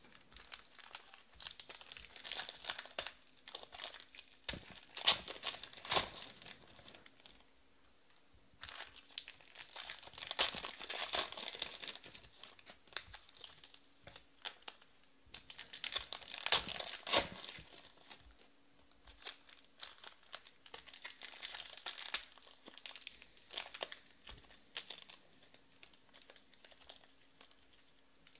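Foil wrappers of Panini Prizm Baseball card packs crinkling and tearing as they are handled and ripped open by hand, in repeated bursts of crackling with quieter gaps between.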